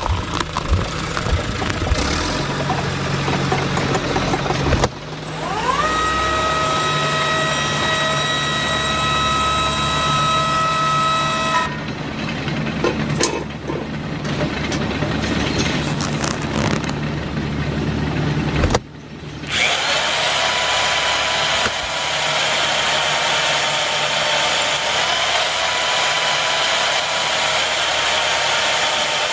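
Small electric motors of a miniature model drilling machine running with a steady whine, in several clips cut together; the whine's pitch changes at each cut, about five, twelve and nineteen seconds in.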